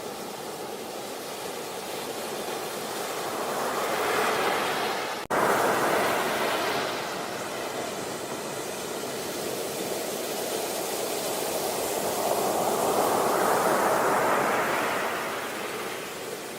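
Sea waves washing onto a beach: a steady surf wash that swells twice, one wave building to about five seconds in and another peaking near the end. There is a sudden brief dropout just after five seconds in.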